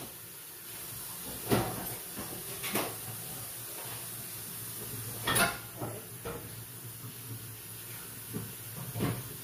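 Kitchen clatter of pots and cupboard doors: several sharp knocks and clanks, the loudest about a second and a half in and again about five seconds in. Under them runs a steady hiss with a low hum, which comes on at the start.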